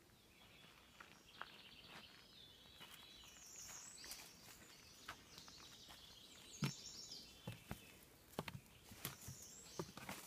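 Faint footsteps on a woodland dirt trail, irregular soft thuds and crunches, with birds singing repeated high phrases in the background.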